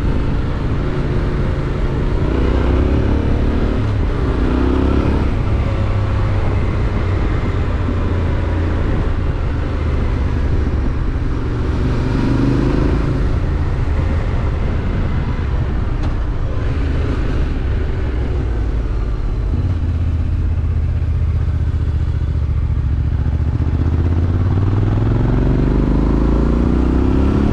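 Yamaha Ténéré 700's parallel-twin engine running under way through an Akrapovič exhaust, rising in pitch a few times as it accelerates, with a long climb near the end. A steady rush of wind noise runs underneath.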